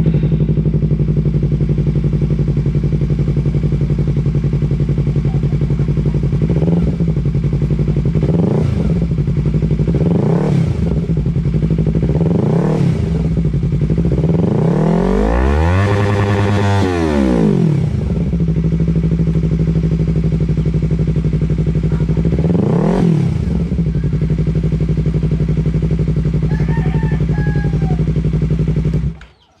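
Yamaha R3's parallel-twin engine, breathing through an aftermarket Akrapovic muffler, idling steadily and being blipped in a series of short throttle revs, with one longer, higher rev in the middle. The sound stops abruptly near the end.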